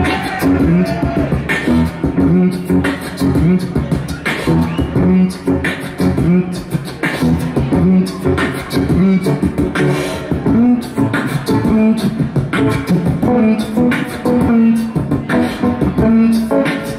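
Live beatboxing into a handheld microphone: sharp mouth-made percussion hits about once a second over short hummed bass notes, forming a beat.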